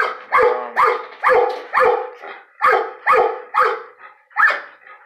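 A dog barking repeatedly in short, sharp barks, about two a second, with brief pauses between runs.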